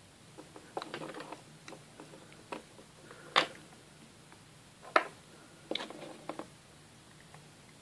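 Scattered light clicks and taps of small plastic paint pots and a plastic model wing being handled and set down on a workbench, with two sharper knocks about three and a half and five seconds in.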